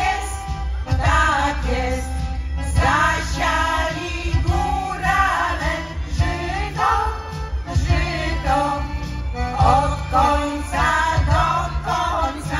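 A folk vocal group singing together in Polish highlander (góral) style over a steady low instrumental backing.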